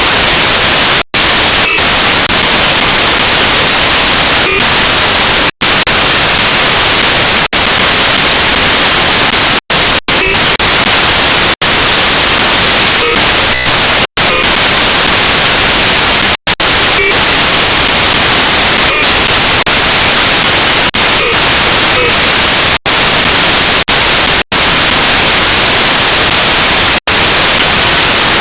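Loud, steady static hiss that drowns out any other sound, cut by brief silent dropouts every two to three seconds.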